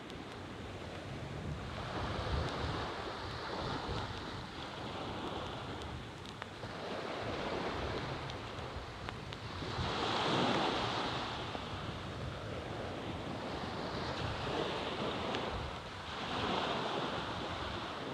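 Small waves washing onto a sandy beach, the surf swelling and fading every few seconds, with wind rumbling on the microphone.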